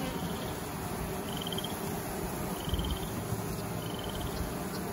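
Honeybees buzzing in a steady hum around an open hive frame. A short high trill repeats three times, about every second and a half.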